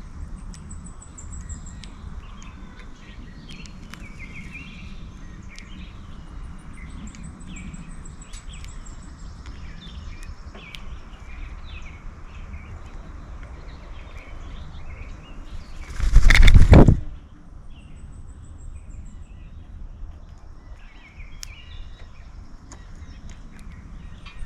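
Backyard songbirds chirping and calling at a feeder over a steady low hum. About two-thirds of the way through comes a loud rush of noise lasting about a second, close to the microphone.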